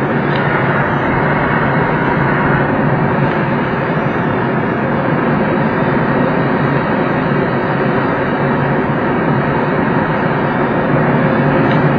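Steady rush of airflow over a glider's canopy in flight, heard from inside the cockpit.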